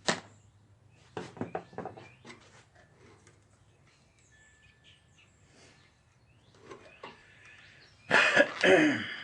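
Small sharp clicks and rattles of electrical wire and hand tools being handled, one crisp click at the start and a quick run of them a second or two later. Near the end comes a brief, louder vocal sound.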